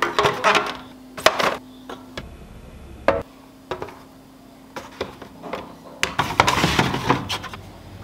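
Cardboard milk cartons being set down in a clear plastic fridge organizer bin: scattered light knocks and taps, then a longer sliding, rustling sound about six seconds in.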